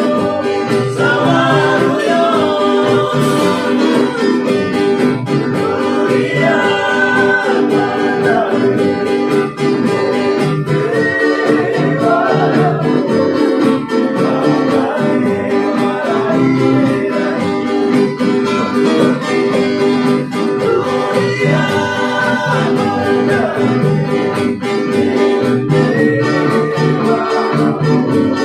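A small acoustic band playing and singing a song: voices singing over strummed acoustic guitars, a ukulele and a hand drum, without a break.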